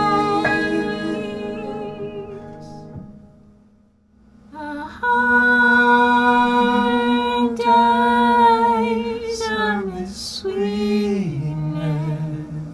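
Sung music with long held vocal notes. The singing fades almost to nothing about three to four seconds in, then comes back with sustained notes that slide down in pitch near the end.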